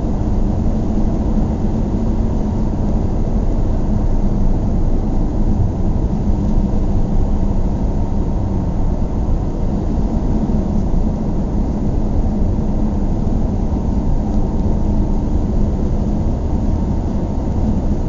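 Steady low rumble of a car being driven, heard from inside the cabin: engine and road noise, unchanging throughout.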